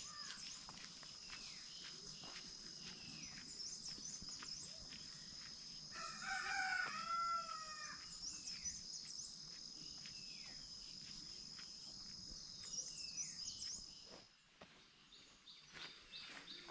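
A rooster crowing once, a single long call of about two seconds that starts about six seconds in. Small birds chirp throughout, and a steady high-pitched whine stops near the end.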